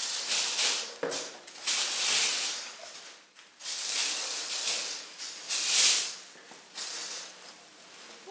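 Tissue paper rustling and crinkling in repeated bursts as it is lifted out of a large box.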